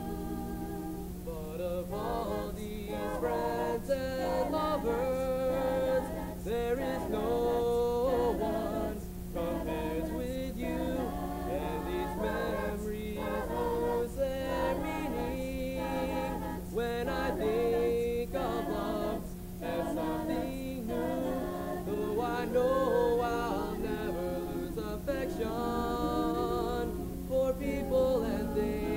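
A cappella choir singing, several voices in harmony with no instruments, over a steady low hum.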